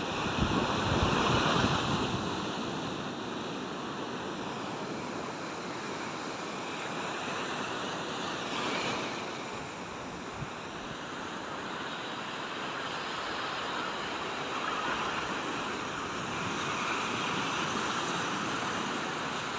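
Sea waves washing onto the shore: a steady hiss of surf that swells and eases every few seconds. There are some low gusts of wind on the microphone near the start.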